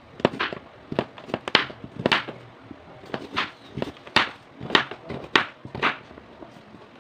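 Kitchen knife slicing through a raw carrot and knocking on a wooden cutting board, in irregular strokes about two a second.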